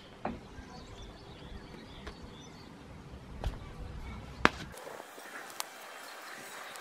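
Laundry being handled: a few sharp clicks and knocks, the loudest a little before halfway, as a plastic laundry basket is set down on patio tiles and clothes are put on a wire drying rack.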